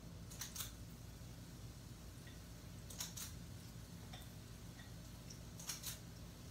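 Three faint short clicks from a kitchen utensil, about two and a half seconds apart, over a steady low hum.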